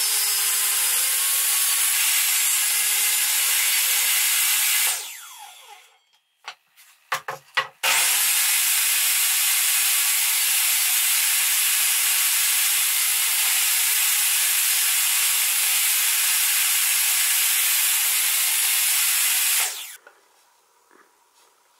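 Benchtop table saw running with boards being pushed through the blade, a loud steady rasping whine. About five seconds in it winds down, a few wooden knocks follow, and then it runs through another cut until it cuts off sharply near the end.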